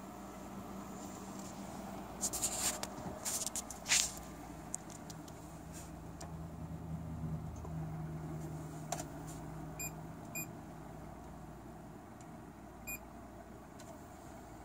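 Desktop PC fans running with a steady hum, with a cluster of clicks and rustles a couple of seconds in. Three short electronic beeps follow, two close together near the middle and one later, typical of a touch-screen fan controller panel being pressed.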